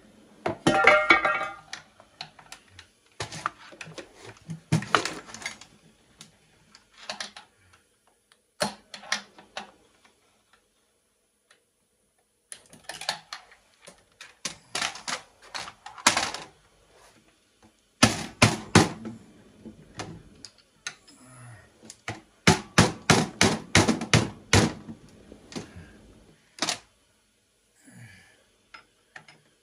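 Screwdrivers clinking and knocking against the metal housing of an old sewing machine as it is taken apart. Irregular taps, with two runs of quick repeated knocks in the second half.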